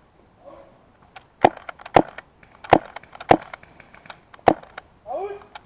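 A series of loud, sharp woody cracks and knocks, about one every half-second to second, with lighter clicks between them.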